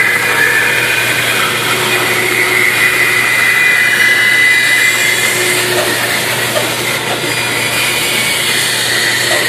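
Band saw running and cutting through a thick pine board as it is fed and turned along a curved line: a steady motor hum under the continuous noise of the blade in the wood.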